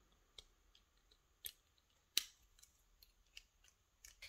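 Sparse small metal clicks and ticks, the loudest a little past two seconds in, as a thin tool pries at the stubborn retaining clip on the back of a brass lock cylinder plug, which has not yet come off.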